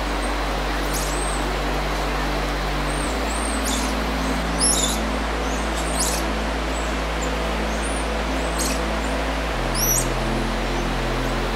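A troop of squirrel monkeys giving short, high-pitched chirps and squeaks, scattered and irregular, some sliding up or down in pitch, over a steady background hum.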